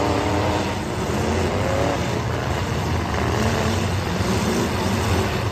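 The engines of many demolition derby cars running and revving together at once, a steady mixed engine noise with pitches rising and falling.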